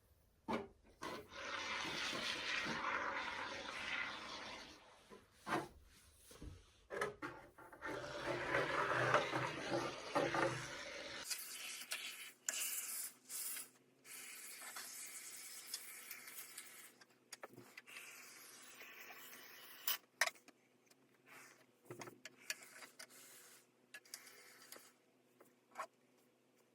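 Can of expanding spray foam hissing in uneven bursts as foam is sprayed into a carbon fiber diffuser's cavities. About eleven seconds in, it gives way to quieter handling noises and scattered clicks.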